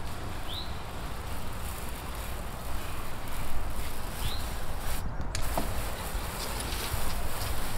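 Water spraying from a hose wand across wooden deck boards, a steady hiss over a low rumble. A short high chirp rises twice, about four seconds apart.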